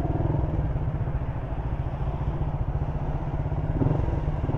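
Motorcycle engine running steadily at low speed in slow traffic, a fast even pulsing rumble.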